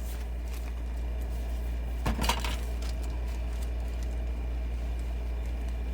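A short cluster of light clinks and knocks about two seconds in, small hard objects being picked up and set down while searching for the scrimshaw ink, over a steady low hum.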